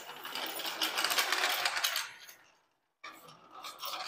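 Wheeled engine stand, loaded with an engine, rolling on its casters across a concrete floor with a dense rattling clatter. It pauses briefly just after two seconds in, then rattles on.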